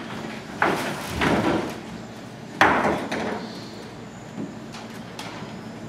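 Bumps and knocks on a wooden stage set as two actors tumble onto a daybed, with a sharper, louder bang about two and a half seconds in.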